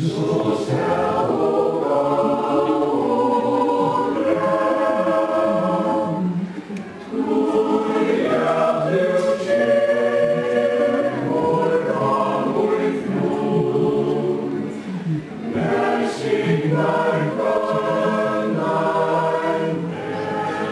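Mixed choir of men and women singing a Faroese patriotic song in sustained chords, in long phrases with brief breaths about seven and sixteen seconds in.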